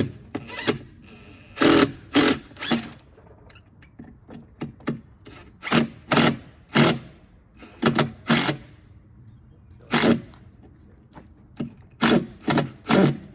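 Power screwdriver driving a screw in at an angle in about a dozen short, stop-start bursts, the screw being used to push the framing over into square.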